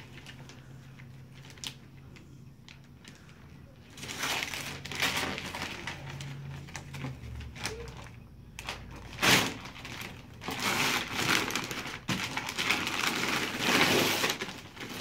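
Christmas wrapping paper being ripped and crumpled off a large boxed present, in bursts from about four seconds in. There is one sharp loud rip near the middle and near-continuous tearing and crinkling in the last few seconds.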